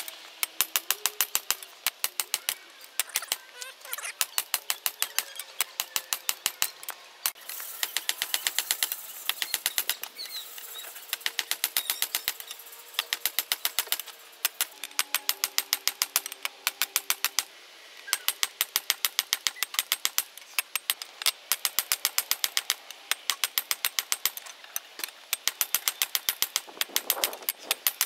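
Hand hammer striking a red-hot piece of car leaf spring steel on a steel block anvil, drawing it out into a knife billet. The blows come fast and evenly in runs of several seconds with short pauses, and the steel rings faintly between strikes.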